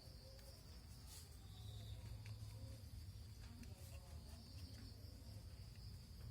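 Near silence: a faint, steady, high-pitched insect chirring with a few soft ticks over a low hum.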